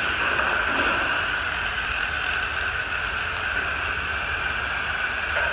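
Several Jada 1/16-scale toy RC drift cars running together, their small electric motors and tyres making a steady high whir on a hard floor.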